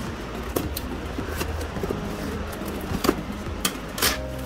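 Scissors cutting through packing tape and corrugated cardboard along a parcel's seam, with a handful of sharp snips and crackles of tape and card at uneven intervals.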